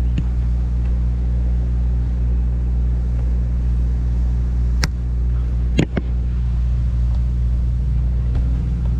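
Steady low hum of an idling engine, with two sharp knocks about five and six seconds in.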